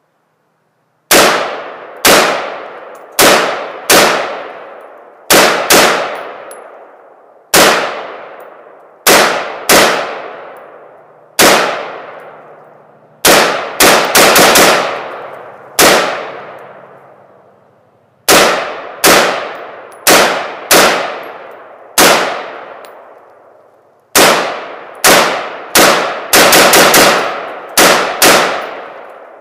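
Wolf A1 piston-driven AR-15 upper (Taiwanese T91 pattern) firing 5.56 mm 55-grain Lake City ball in semi-automatic: about thirty shots at an uneven pace. Most come about a second apart, with a few quick strings of shots, and each has a long echoing tail.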